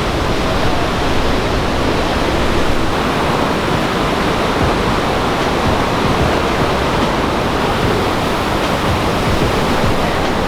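The Rhine Falls: a large waterfall's water pouring down in a loud, steady rush.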